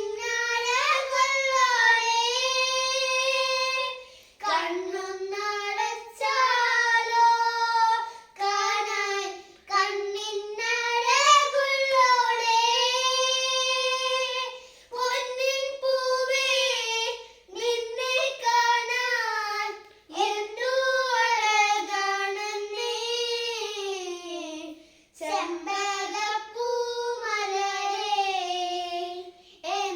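A child singing a Malayalam folk song unaccompanied, a single high voice in long held phrases with short breaks between them.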